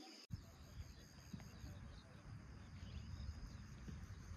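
Faint natural ambience: insects buzzing steadily, with a few short bird chirps over a low rumble. The sound drops out for an instant just after the start.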